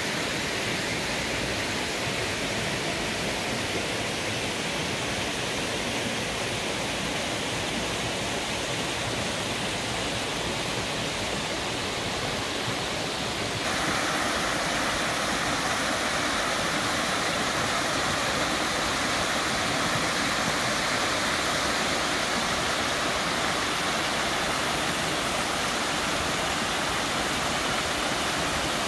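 Mountain stream water rushing and splashing over boulders and a small rock waterfall, a steady rushing noise that grows louder and brighter about halfway through.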